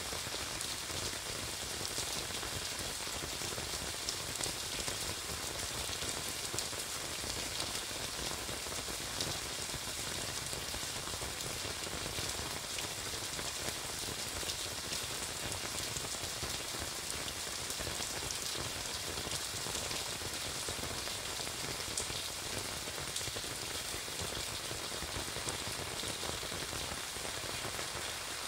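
Heavy rain falling steadily on pavement and on an umbrella overhead, a dense, even patter of drops.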